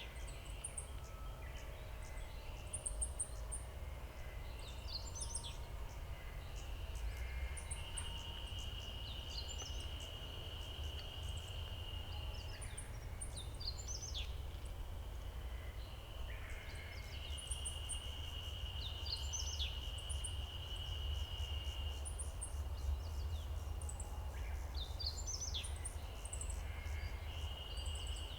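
A songbird singing short high phrases every few seconds over a steady high-pitched trill that stops and restarts several times, with a constant low rumble underneath.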